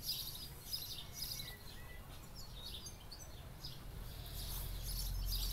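Small birds chirping and singing in short, repeated calls. A low rumble comes up about four seconds in and stays.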